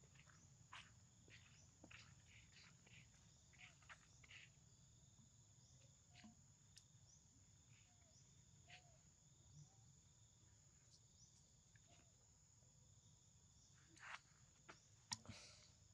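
Near silence: a faint, steady high insect drone, with scattered soft clicks and rustles and a slightly louder cluster of clicks near the end.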